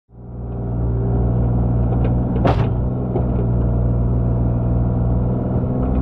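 Diesel engine of a compact construction machine running steadily, with a sharp clank about two and a half seconds in. The sound comes in abruptly from silence at the start.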